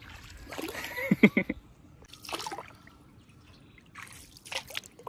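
Water splashing and trickling around a small boat on a stream, in a few short bursts, the loudest about a second in.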